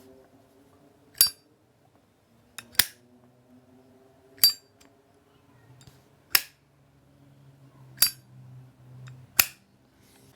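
Genuine solid copper Zippo lighter, its lid snapped open and shut three times: six sharp metallic clicks about one and a half seconds apart.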